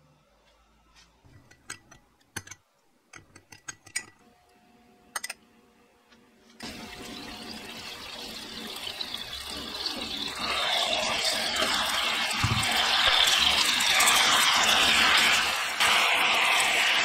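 A few light clinks of a metal spoon against a glass bowl. Then, about six and a half seconds in, soy-and-citron sauce starts sizzling in a hot nonstick frying pan and grows steadily louder as it bubbles around pan-fried Spanish mackerel pieces.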